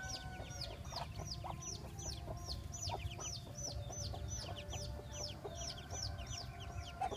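Muscovy ducklings peeping steadily, a run of short high-pitched peeps at about three a second, with lower, shorter calls here and there underneath.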